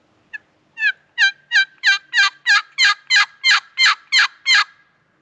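Wooden turkey box call worked by hand, sounding a series of about a dozen hen yelps at roughly three a second after a short first note. Each yelp breaks from a high note to a lower one, imitating a hen turkey to call in gobblers.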